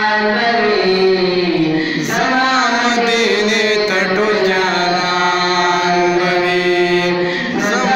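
A young man chanting a naat, a devotional poem in praise of the Prophet Muhammad, into a microphone in long held melodic notes, starting a new phrase about two seconds in and again near the end.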